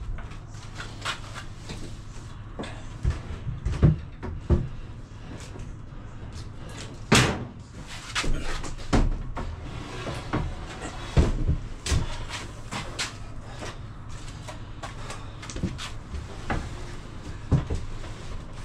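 A dishwasher being lifted and pushed into place in a kitchen cabinet opening: a run of irregular knocks, bumps and scrapes of the appliance against the cabinet boxes, the loudest about 4, 7 and 11 seconds in.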